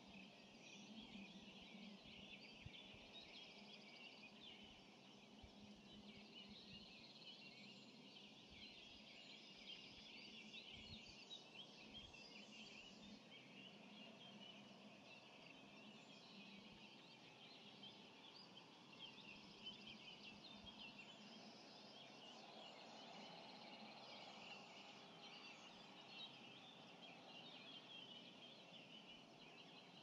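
Dawn chorus: many songbirds singing at once, a faint, dense wash of overlapping high chirps and trills.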